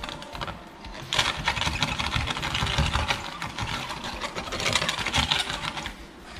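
Stiff bristle brush with a wooden handle scrubbed rapidly back and forth over paint protection film on a car's hood: a dense scratchy rasping that starts about a second in and stops shortly before the end.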